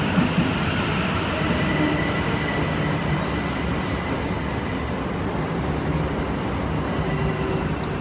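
Southern Class 377 electric multiple unit running alongside the platform: a steady rumble of wheels and traction equipment, with a faint high whine about two seconds in.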